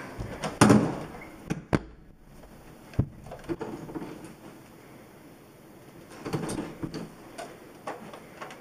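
Door being handled: a bump about half a second in, then sharp clicks about a second apart, like a latch, and a few softer knocks later.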